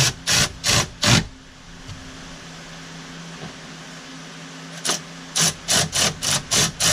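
Hand ratchet wrench being worked in quick strokes, about three a second, tightening the screws of a Tesla Model 3's penthouse lid down onto its gasket. It stops for about three seconds and then starts again.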